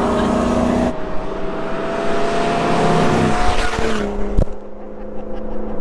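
Off-road vehicle's engine running, heard from inside the cab. After a cut, a vehicle rushes past on pavement with a rising noise, its engine note falling as it goes by. A sharp knock follows, then a quieter steady engine tone.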